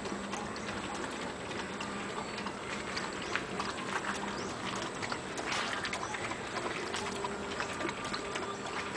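Two Belgian Malinois eating dry kibble from a plastic bowl: irregular crunching and small clicks of teeth and kibble against the bowl.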